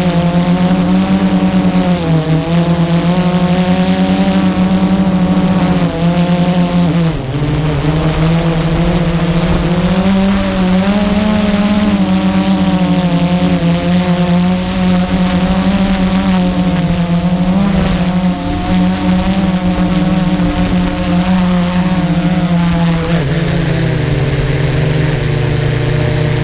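Blade 350 QX2 quadcopter's electric motors and propellers, heard from the camera on board: a loud steady buzzing hum whose pitch rises and falls with the throttle. The hum dips briefly about seven seconds in and settles lower near the end as the quadcopter lands in the grass.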